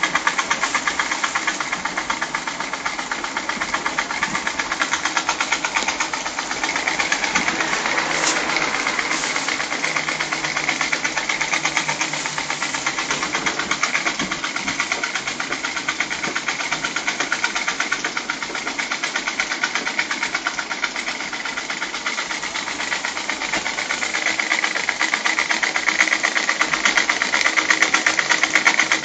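Small single-acting rotary-valve model steam engine running fast: a rapid, even beat from the engine with a steady steam hiss underneath.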